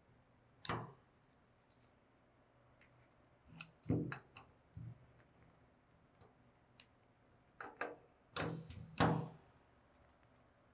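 Two adjustable steel wrenches clinking and knocking against a retention nut and expander cone as the nut is torqued down onto the cone body. There are a handful of separate sharp clinks, with a quick cluster near the end.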